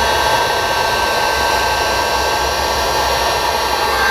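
Electric heat gun blowing steadily, a rush of air with a steady motor whine, heating a solder-seal butt connector so its solder ring melts and its shrink tubing closes over the spliced wires.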